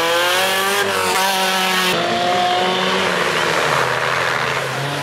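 Off-road race truck engine revving hard under load, climbing in pitch for about a second and then dropping back. After a cut about two seconds in, another off-road truck's engine runs hard through a mud hole.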